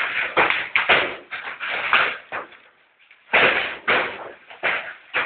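Large hailstones, some the size of tennis balls, striking the roof and hard surfaces of a house: loud, irregular bangs, often several a second, with a short lull about two and a half seconds in.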